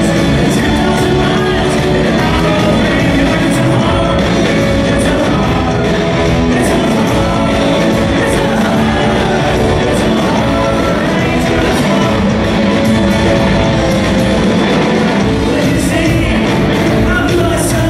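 Live rock band playing, a man singing the lead over electric guitar and electric bass.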